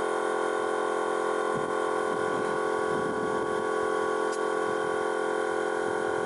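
Electric air-suspension compressor running steadily with a constant hum, charging its air tank toward about 50–60 psi.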